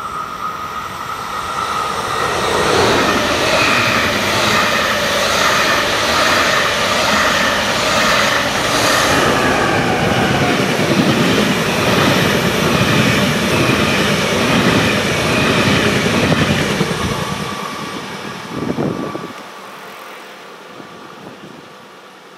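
ÖBB Railjet passenger train passing close by at speed: a steady rush of wheels on rail and air that builds up, holds for about fifteen seconds as the coaches go by, has a short louder burst near the end, then fades as the train draws away.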